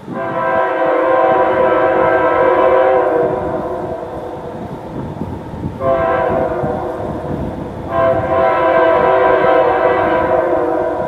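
Union Pacific diesel locomotive's air horn blowing a chord for a grade crossing: a long blast, a shorter one about six seconds in, and another long one from about eight seconds in, over the low rumble of the approaching train.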